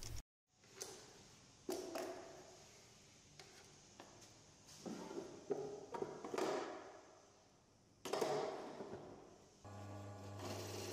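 Wooden drawers of a plywood drill-press cabinet slid open and pushed shut, making several knocks and sliding rumbles. A steady low hum begins near the end.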